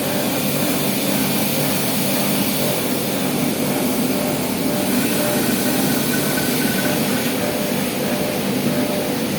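CNC machine running steadily, a constant loud mechanical drone with hiss. A faint high tone comes in briefly about halfway through.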